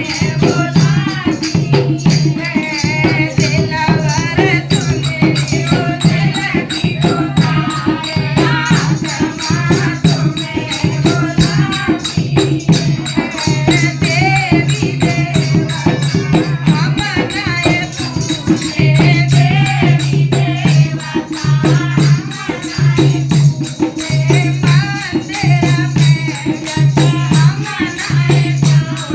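Devotional Hindi bhajan: a wavering sung melody over a steady low drone, with a fast, continuous rattle of shaker-like percussion.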